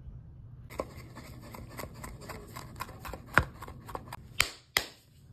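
Chef's knife chopping baby spinach on a wooden cutting board: a fast, uneven run of knife strokes starting about a second in, with a few louder knocks near the end.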